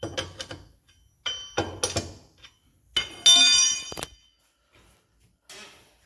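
Metal tire-change tools clinking and knocking: a few sharp clinks early on, then a loud metallic clank about three seconds in that rings on for most of a second.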